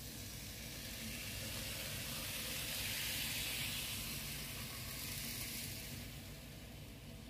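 N-scale model train running past on Kato track: a rolling hiss of wheels and motor that swells to its loudest about three seconds in and fades away again.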